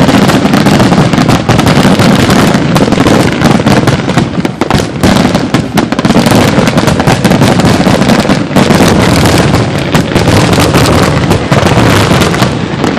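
Fireworks finale: a dense, continuous barrage of shells bursting and crackling in rapid succession, very loud, easing off slightly near the end.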